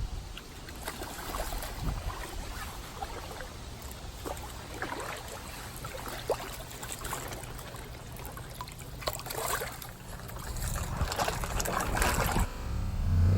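Pond water sloshing and trickling, with many small scattered splashes, as someone wades and handles koi. A low rumble comes in near the end.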